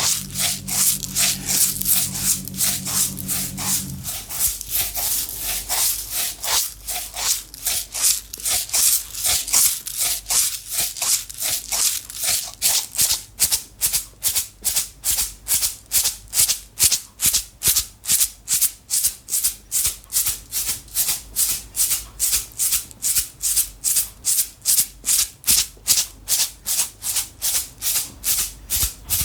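Small container of loose dry contents shaken by hand, rattling. The shakes come quickly and unevenly at first, then settle into an even rhythm of about two a second.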